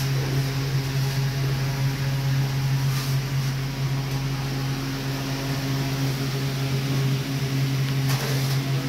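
A steady mechanical hum with a constant hiss, unchanging throughout, with two brief faint knocks, one about three seconds in and one near the end.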